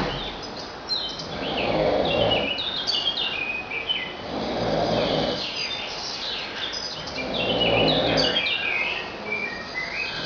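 A sleeping hospital roommate snoring: three rough, low snores about three seconds apart, each swelling and fading for about a second, with birds chirping in the background.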